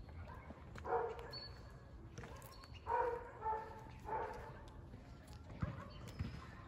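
A dog barking four times, a short bark about a second in, then three more at intervals of under a second around the middle.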